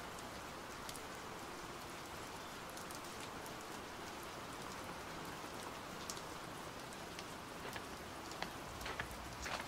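Steady hiss of light rain, with scattered drips tapping, a few close together near the end.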